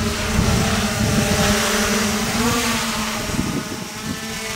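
Yuneec Typhoon H six-rotor drone flying low nearby, its propellers giving a steady buzzing hum with a slight rise in pitch midway, over a hiss of rotor wash.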